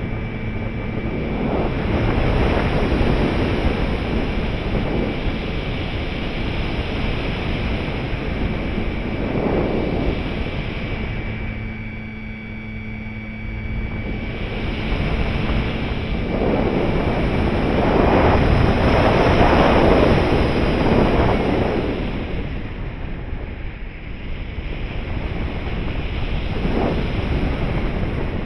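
Air rushing over an RC glider's onboard camera in flight, swelling and easing. A thin steady whine from the glider's electric motor and spinning propeller runs until about halfway through, then stops, leaving only the rush of air.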